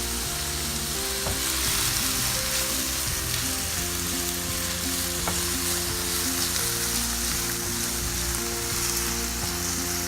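Chopped tomato sizzling steadily in hot oil in a frying pan with garlic and onion, being sautéed.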